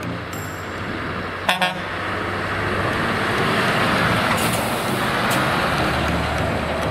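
A Scania R-series truck pulling a curtainsider trailer drives past, its engine and tyre noise swelling as it comes closest. About a second and a half in, two short toots of its horn.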